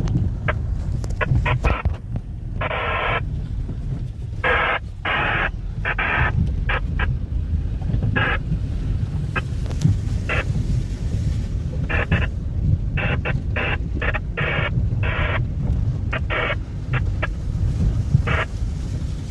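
Off-road vehicle driving on a trail: a steady low rumble with wind buffeting the microphone, broken by many short, higher-pitched bursts, some half a second long.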